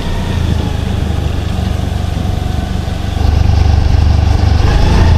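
Motorcycle running along a road, heard from the rider's own microphone: a steady low rumble of engine and road noise that gets louder about three seconds in.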